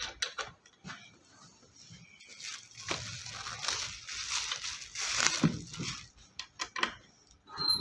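Plastic packing wrap crinkling and rustling as the wrapped chair back is handled, with scattered small clicks from the metal bracket and screws being fitted.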